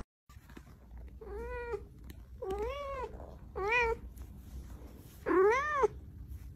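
Domestic cat meowing four times, each call rising and then falling in pitch; the last meow is the loudest.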